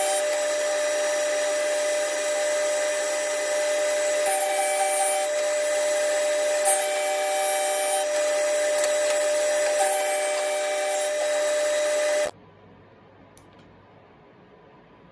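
Thickness planer running as mahogany boards are fed through it, a steady machine noise with a higher tone that comes and goes about four times. It cuts off suddenly near the end, leaving faint room tone.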